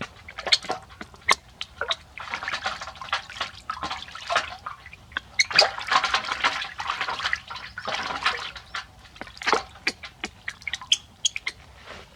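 Water splashing and dripping during a bath: sharp splashes and drips, with longer stretches of busy splashing.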